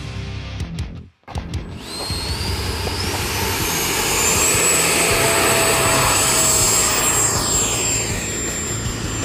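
A 12-blade 80mm electric ducted fan on a high-RPM brushless inrunner motor spools up with a rising whine about two seconds in. It then runs at full power through the jet's takeoff, a high steady whine over a loud rush of air, and its pitch sweeps down near the end as the jet flies past. Background music plays underneath.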